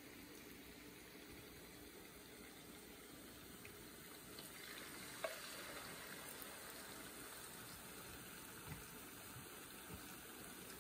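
Oil faintly sizzling in an electric skillet as shredded-yam and shrimp patties fry over medium heat. A light click of chopsticks or spoon on the pan about five seconds in, and a couple of softer ticks later.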